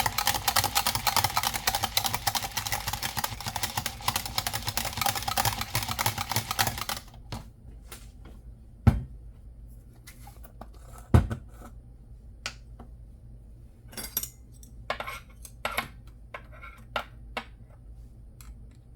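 Rapid, dense clatter of a utensil against a dish for about seven seconds, then it stops suddenly. Two sharp knocks follow, then a few lighter clicks of dishware.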